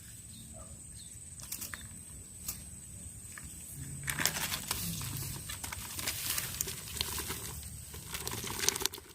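Close rustling and crinkling with scattered small clicks, busier in the second half, over a steady high tone.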